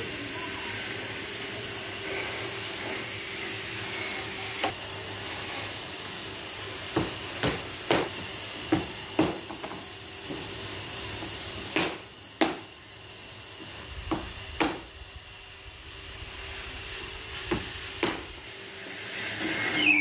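About a dozen short, sharp wooden knocks and taps, some in quick pairs, over a steady hiss.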